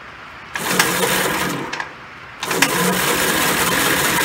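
1968 Gravely Custom Convertible 7.6 HP single-cylinder engine cranking over without firing, in two tries: one about half a second in lasting nearly two seconds, then after a short break cranking again. It turns over but never catches, for want of spark, which the owner suspects.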